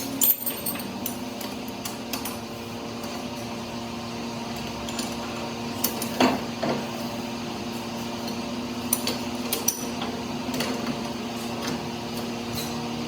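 Scattered metallic clinks and knocks of tools and steel parts being handled, over a steady machine hum.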